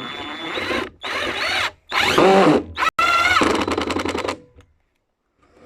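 Ryobi 18V One+ impact driver running with a drill bit, boring through a piece of wood. Its motor whines in four runs of about a second each, the pitch bending up and down as the trigger is worked, and it stops about four and a half seconds in.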